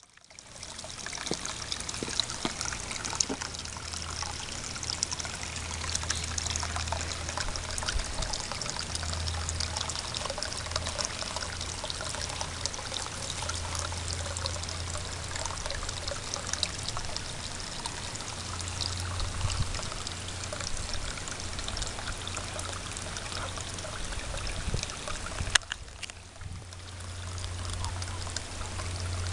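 Steady trickling and splashing of water running into a small garden pond, with a low hum underneath. Near the end it drops away briefly, then comes back.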